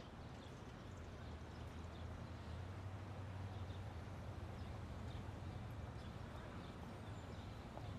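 Faint city street ambience: a low, steady traffic rumble that swells a little midway, with scattered light clicks.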